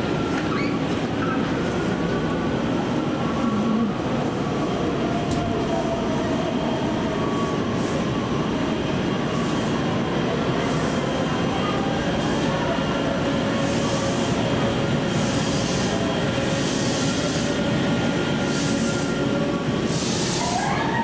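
Ex-JR East Series 205 electric commuter train at the platform: steady train rumble with thin, slowly wavering metallic tones. Several short hisses come in the last seven seconds.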